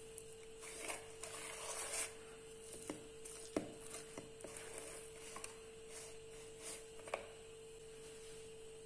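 Wooden spoon stirring thick chickpea-flour batter in a stainless steel bowl: faint, irregular scraping strokes with a few light knocks of the spoon against the bowl, stopping near the end. A faint steady hum runs underneath.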